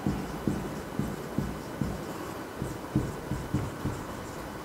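Marker pen writing on a whiteboard: a run of soft, low knocks and rubs at an uneven pace of about two a second as the letters go on.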